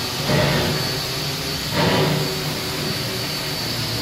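C17 class steam locomotive standing in steam, letting off a steady loud hiss of steam with a low rumble, which surges twice about a second and a half apart.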